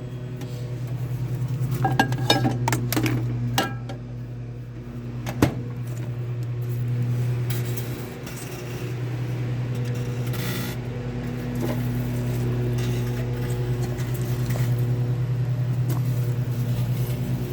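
Microwave oven running with its steady low hum, with a few clicks and knocks in the first four seconds and one sharp snap about five seconds in.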